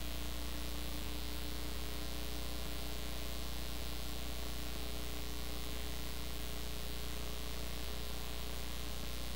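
Steady hiss with a low electrical hum and a few faint constant tones: line noise from the audio feed, with no distinct event.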